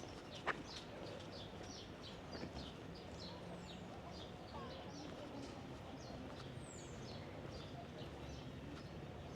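Many small birds chirping continually, with a few high falling whistles, over a steady background hum of outdoor noise. There is a single sharp click about half a second in.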